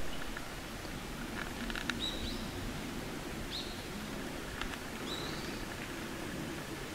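A bird calling three times, short whistles that sweep upward, over a steady outdoor background hiss, with a few faint clicks.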